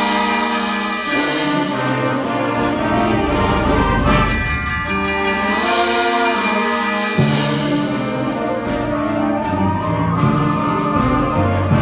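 School concert band playing: brass and woodwinds in held, shifting chords over a rapid, steady percussion beat, with two percussion crashes, about a second in and again a little past the middle.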